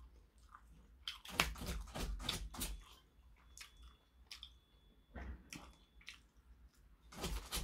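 A person biting into and chewing raw onion, with irregular crisp crunches in several clusters.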